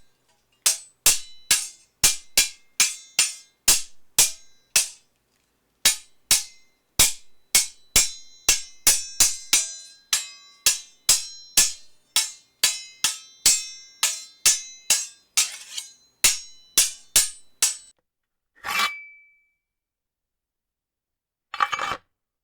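Sword sound effects: a quick run of sharp metal clashes and clinks, each with a short metallic ring, about two or three a second. Near the end come two longer scraping blade sounds, the first ending in a brief ring.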